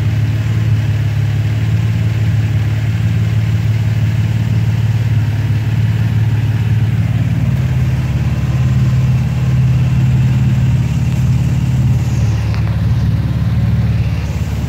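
Nissan 350Z's Greddy twin-turbocharged VQ35DE 3.5-litre V6 idling steadily, its pitch rising a little midway and then settling again.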